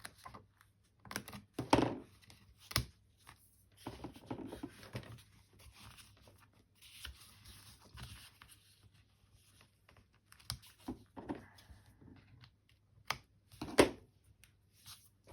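Scissors snipping fabric in short, irregular cuts, mixed with the rustle of fabric and paper being handled and a few sharp clicks, one of the loudest near the end.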